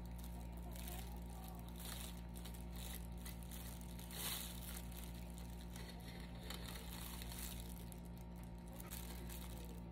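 Soft crinkling and rasping as a knife saws through a loaf of banana bread held in a disposable plastic-gloved hand, with one slightly louder rustle about four seconds in, over a low steady hum.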